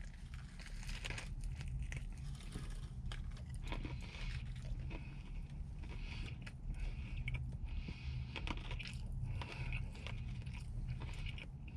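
Close-up biting and chewing of a sandwich of fried, breaded chicken tenders, the heavy breading crunching in many small, irregular crackles, over a steady low hum.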